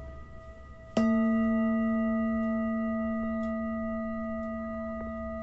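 Manipuri singing bowl struck once with a felt mallet about a second in, then ringing on with a low main tone and several higher overtones, fading slowly. Before the strike the tail of an earlier ring is still sounding.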